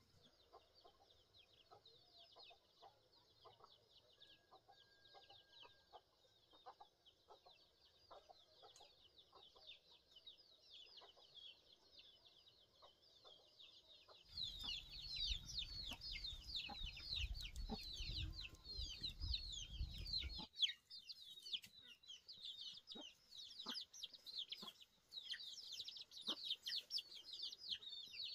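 Chickens, mostly chicks, peeping continuously in many quick, high, overlapping chirps, with light taps underneath. About halfway through the peeping gets louder, and a low rumble runs under it for several seconds.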